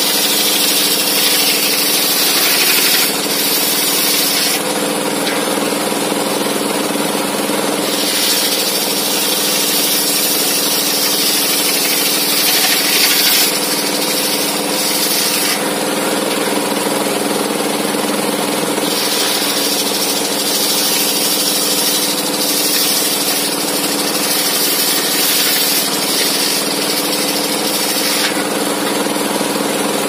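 Large circular saw blade on a homemade saw bench ripping timber into planks, over the steady hum of the saw's drive. A high cutting hiss comes and goes every few seconds as the blade works through the wood.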